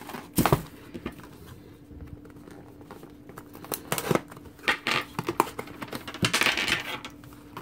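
Cardboard hockey card hobby box and its plastic wrapping handled while it is opened: a sharp knock about half a second in, a few light taps around four to five seconds, and a longer crinkle of plastic past six seconds.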